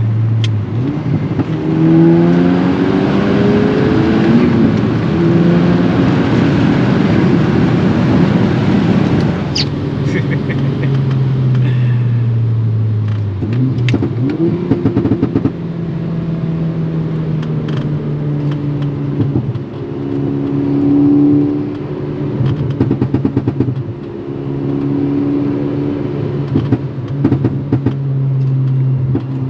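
Turbocharged 2.0-litre four-cylinder of a modified MK6 Golf R with a custom turbo-back exhaust, accelerating: the note rises for several seconds, drops at about nine seconds, climbs again and then runs at steadier revs. Tyre hiss from the wet road runs underneath, with a few short bursts of rapid crackling.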